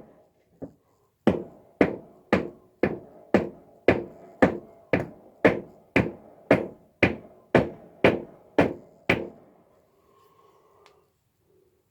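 A hammer striking in a steady series, about two blows a second, each with a short ring. About sixteen blows follow a brief pause, and the strikes stop about nine seconds in.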